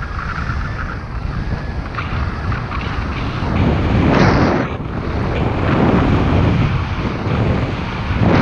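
Airflow rushing over a GoPro HERO5 Black's microphone in flight under a paraglider: loud, rumbling wind noise that swells and eases in gusts, strongest about four seconds in.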